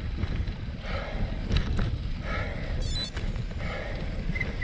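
Wind rumbling on the microphone of a cyclocross bike ridden hard through wet, muddy ground, with the rider's heavy breathing repeating about every second and a half. A brief high squeak about three seconds in.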